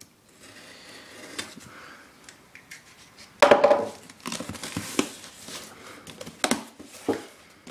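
Cardboard shipping box being opened by hand: flaps and packing rustling and scraping, with a louder rustle about three and a half seconds in and a few sharp clicks and knocks after it.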